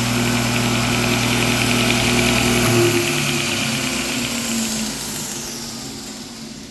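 Electric motor of a belt grinder running steadily with a hum and a whirring belt. About three seconds in it is switched off, and the wheels and belt coast down, the whir falling in pitch and fading.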